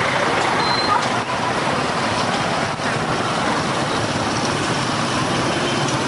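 Dense motorbike and scooter traffic: many small engines running together with road noise, heard from the saddle of a scooter riding in the thick of it.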